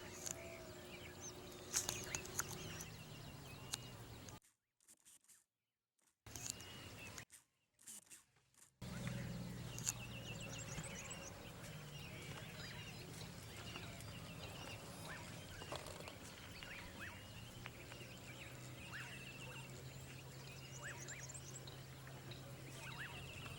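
Many birds chirping and calling over a steady low hum; the sound cuts out twice in the first half, for a second or two each time.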